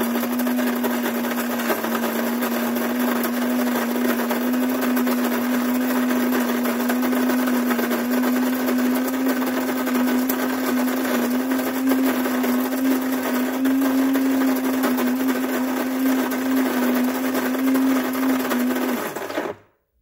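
Built-in bean grinder of a Cuisinart grind-and-brew coffee maker running steadily as it grinds beans at the start of a brew cycle, its hum creeping slightly higher in pitch. The motor cuts off abruptly near the end.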